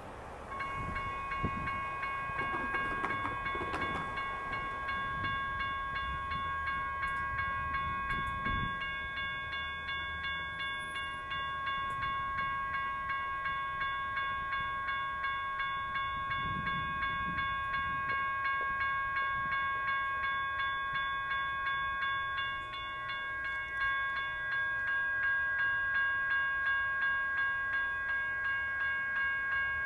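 Electronic railroad crossing bells, a General Signal Type 1 and a WCH Type 1.5, start ringing about half a second in and keep ringing in a fast, even rhythm while the crossing is activated and its gates are lowered.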